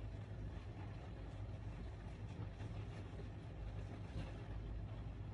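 Steady low background rumble, like distant traffic or a running fan, with no clear events in it.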